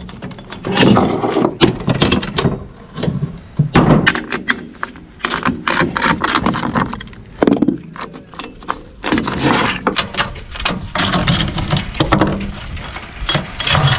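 Irregular metallic clinks and knocks as a socket ratchet and galvanized steel brackets are handled on a truck trailer's load floor.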